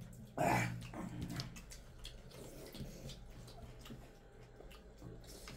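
Faint sounds of eating by hand: fingers squishing and scraping rice and curry against steel plates, with light clicks and chewing. There is a short louder noise about half a second in.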